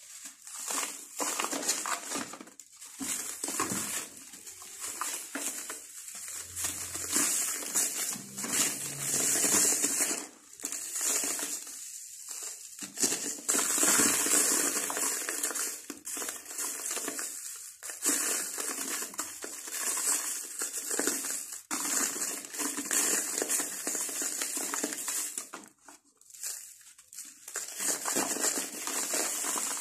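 Dry sand-cement chunks crushed and crumbled by hand: a dry, crackling crunch with powder and grit trickling through the fingers, in bursts with short pauses between handfuls.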